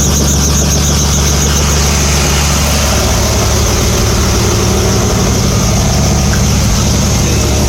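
Helicopter running: a loud, steady engine and rotor drone. A faint high pulsing, about four to five beats a second, fades out in the first two seconds.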